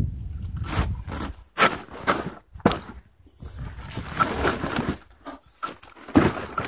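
Scraping and rustling as a mesh bag of split firewood is handled and its drawstring cords are pulled tight: a series of short scrapes at uneven intervals.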